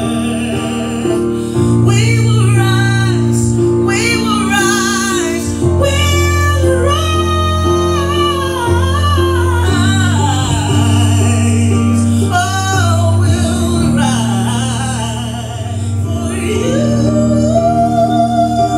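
A smooth-jazz song with a woman singing long, wavering lines with vibrato over sustained chords and bass, rising into a long held note near the end.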